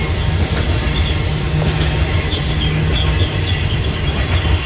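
Coal train hopper cars rolling past: a steady rumble of steel wheels on the rails, with a few faint, short wheel squeals.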